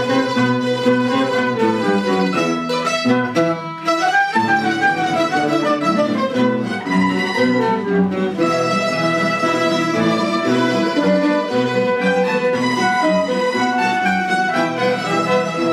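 Portuguese folk ensemble playing: strummed acoustic guitars and mandolins accompanying a woodwind carrying the melody, with a brief dip in the music about four seconds in.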